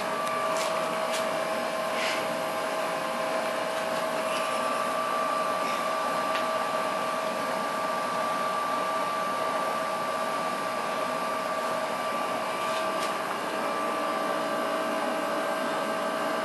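Steady whir of a running motor or fan, with a constant two-note whine and no change in speed. A few faint clicks sound over it in the first couple of seconds and again later.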